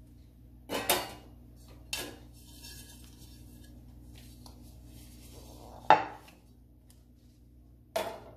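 A metal cake tin and a plate knocking and clattering as a cake is turned out of the tin onto the plate: four separate knocks, the loudest about six seconds in, with a faint scrape in between.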